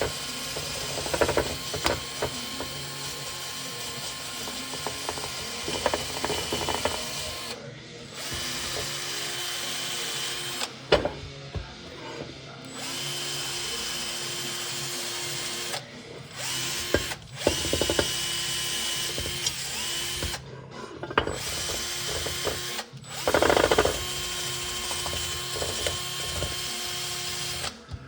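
Handheld power tool running in bursts of a few seconds, stopping and restarting over and over, with a steady whine while it runs and a few louder rough moments.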